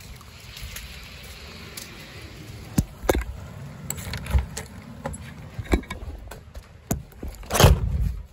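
Knocks, rattles and scrapes as a door is handled and opened, with the loudest knock near the end, over a low wind rumble on the microphone.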